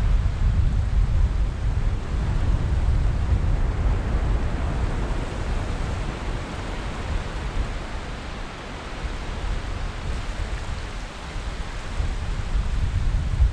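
Wind buffeting the microphone with a heavy, fluttering low rumble, over the steady hiss of surf from the incoming tide.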